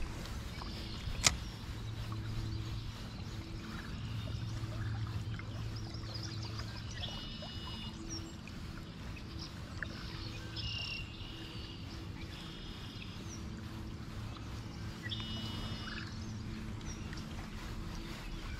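Steady rush of creek water, with a bird singing short repeated phrases several times and a low hum that comes and goes. A single sharp click about a second in.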